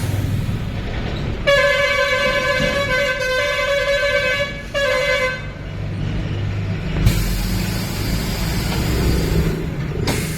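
A vehicle horn sounds one steady note for about three seconds, breaks off briefly, then sounds again for a moment, over a constant low engine rumble. A few seconds later a broad hiss rises and holds for about three seconds.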